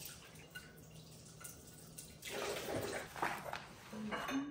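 Kitchen tap running into the sink as a small item is rinsed under it, louder and splashier about two seconds in.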